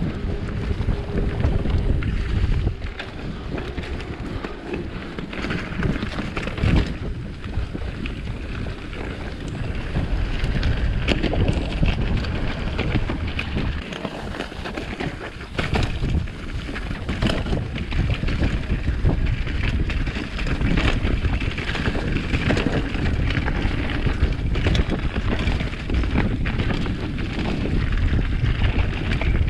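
Wind buffeting the microphone of a camera on a moving mountain bike, a steady rumble, with the crackle of tyres rolling over a dirt trail strewn with dry leaves and brief rattles over bumps.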